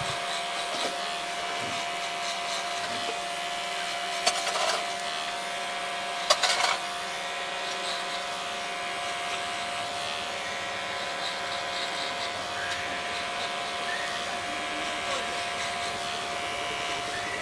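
Cordless electric hair clipper running steadily with an even hum, cutting short hair held up on a comb (clipper-over-comb). Two brief clicks about four and six seconds in.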